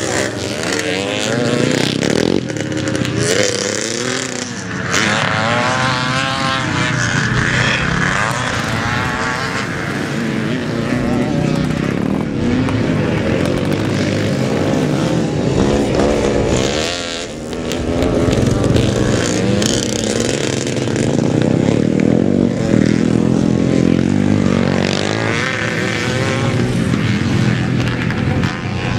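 Vintage motocross bikes racing, several engines revving up and down in pitch through throttle and gear changes. The sound swells as bikes pass and briefly drops away about two-thirds of the way through.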